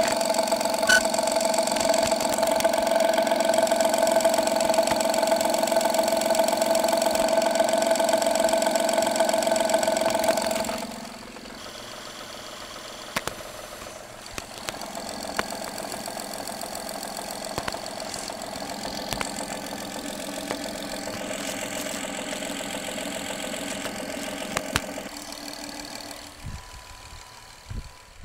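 Honda J30A9 V6 engine idling, picked up by a microphone held close to the engine, with faint regular ticks in the running. About eleven seconds in the sound drops sharply to a much quieter level. The engine is warming up, and the knock that the owner traces to a failing timing belt tensioner is dying away.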